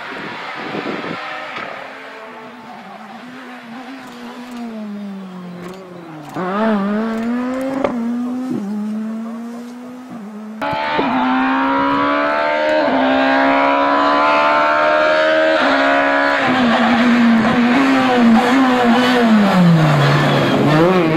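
Škoda Fabia S2000 rally car's 2.0-litre four-cylinder engine, revving hard through quick gear changes. The revs drop as it brakes for corners and climb again as it accelerates away. About halfway through it gets abruptly louder.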